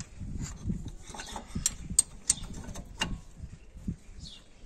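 Steel combination wrenches clinking and scraping against a brake caliper and pads as two spanners are levered between the pads to spread them apart. There are several sharp metallic clicks, most of them in the middle of the stretch.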